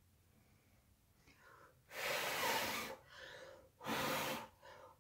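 A person blowing out hard in two strong puffs, each about a second long, with softer in-breaths before and between them.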